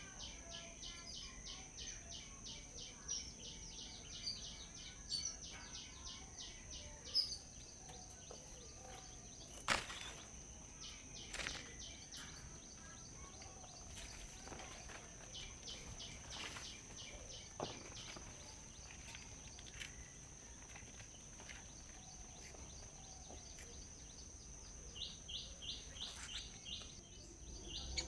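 Small birds chirping in fast runs of short high notes over a steady high-pitched insect drone, with a few sharp clicks in the middle.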